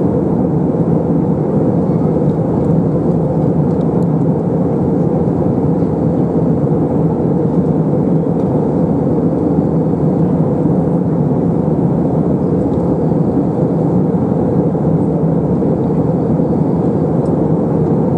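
Steady cabin noise inside an Airbus A321 airliner in flight: engine and airflow noise as an even low rumble that does not change.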